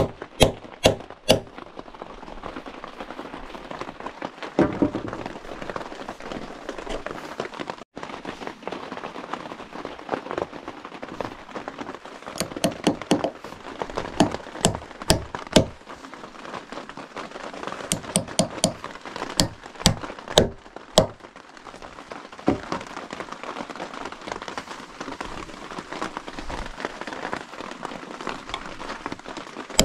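Hammer driving nails into a wooden log, in several bursts of quick, sharp blows with pauses between them, over a steady hiss of rain.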